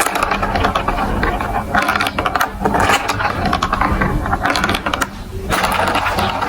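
Marbles rolling and clattering through plastic building-block marble run track, a rapid stream of small clicks and rattles, with a steady low hum underneath.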